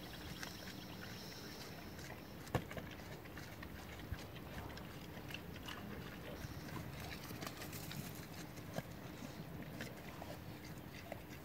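Javelinas foraging, faint: scattered small clicks and crunches over a low steady background rumble, with one sharp knock about two and a half seconds in.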